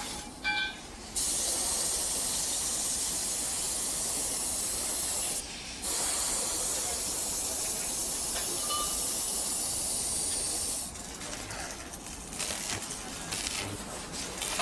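Spray paint hissing in two long, steady bursts, the first about four seconds and the second about five, with a short break between them.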